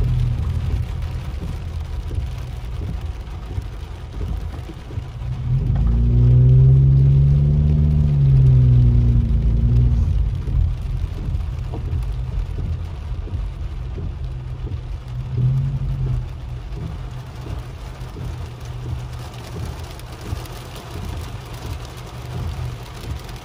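Car cabin noise while driving in hail and heavy rain: a steady low engine and road rumble, with hail and rain hitting the car's body and windshield. About six seconds in, an engine revs up and back down for roughly four seconds, with a shorter rev near the middle.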